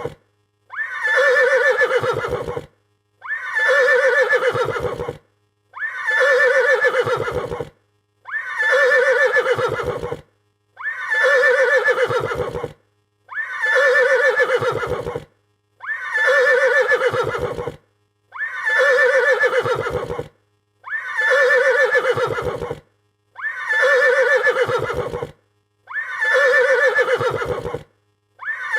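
Horse neighing in fright: the same shrill whinny, each ending in a low stuttering flutter, repeated about every two and a half seconds as a loop.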